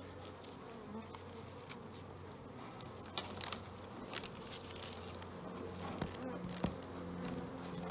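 Honeybees buzzing steadily around an open hive, with scattered clicks and rustles as leftover newspaper is cleared off the top of the frames.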